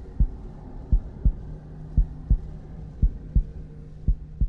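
Heartbeat sound effect: slow paired lub-dub thumps about once a second over a low steady drone, with a low hum joining about a second and a half in.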